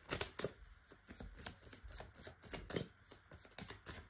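Tarot cards being shuffled by hand: a fast, irregular run of light card clicks and slaps.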